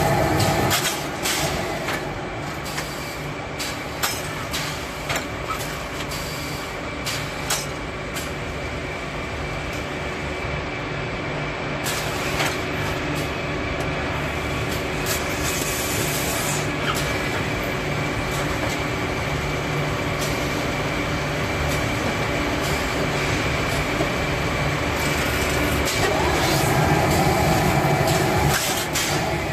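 Automatic cable-tie bag-closing machine running: a steady mechanical hum with scattered sharp clicks as it gathers and ties a drum liner bag, getting louder for a few seconds near the end.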